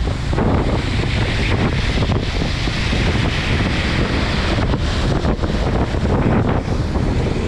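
Heavy rain falling hard and steadily, with a deep, gusty rumble of wind underneath.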